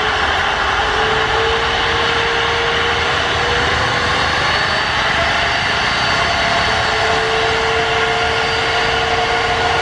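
Jet airliner engines running: a loud, steady roar with faint whining tones that drift slowly in pitch.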